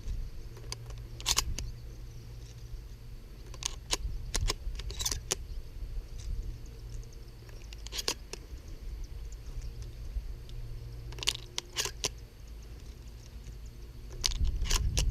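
12-gauge shotgun shells being handled and loaded into a Mossberg 500's tube magazine: scattered short metallic clicks, each a few seconds apart, with a cluster near the end.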